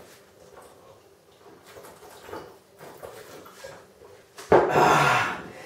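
A man drinking a swig of rum from a glass, with faint clinks and handling noise, then about four and a half seconds in a loud, breathy vocal sound lasting about a second as he comes off the drink.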